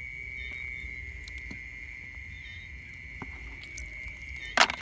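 Night insects trilling in one steady high-pitched note, with a few faint clicks, and a single loud bump near the end.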